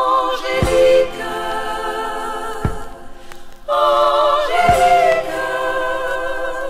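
Choir of backing singers holding long chords in close harmony, in two phrases with a short break between them, over a low drum hit about every two seconds. This is the intro of a 1973 French pop song recording.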